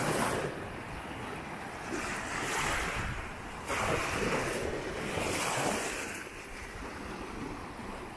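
Small waves washing up on a sandy shore, each wash of surf swelling and fading about every two seconds. Under it is a low rumble of wind on the microphone.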